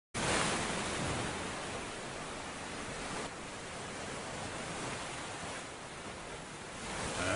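Steady rushing ambience of sea surf, louder in the first second and dropping slightly about three seconds in.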